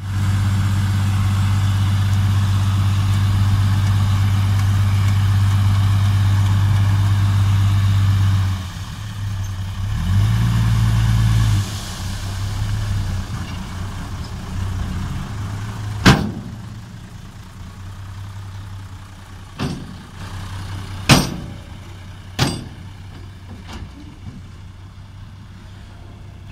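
Isuzu Deca dump truck's diesel engine running loudly and steadily while the bed tips a load of soil, dropping to a quieter idle after about twelve seconds. Several sharp bangs come through over the idle in the second half.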